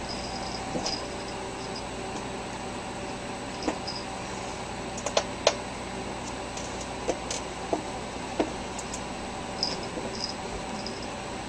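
Steady hiss and low hum of room noise, with scattered light clicks and taps and a few brief faint high chirps; the loudest clicks come about five seconds in.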